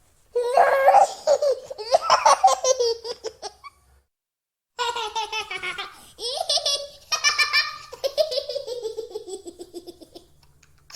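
Toddler boy laughing hard while being tickled: rapid bursts of high giggles and belly laughs. The laughter breaks off for under a second about four seconds in, then resumes and trails into a long falling squeal near the end.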